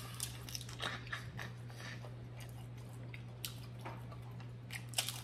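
Close-up eating sounds of seafood boil: chewing with scattered small clicks and cracks of shells being handled, the loudest cluster near the end, over a steady low hum.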